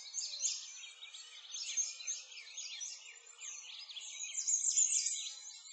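A chorus of many small birds chirping and singing at once, quick overlapping high chirps and sweeping notes.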